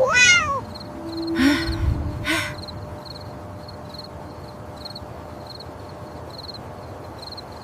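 A cat's meow, falling in pitch, right at the start, then a couple of brief rustles, over steady insect chirping, about two high chirps a second, typical of crickets at night.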